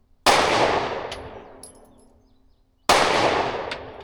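Two 9mm pistol shots from a Glock 43X, about two and a half seconds apart, each ringing out and dying away over about two seconds. Faint light metallic ticks sound between them, typical of ejected brass landing.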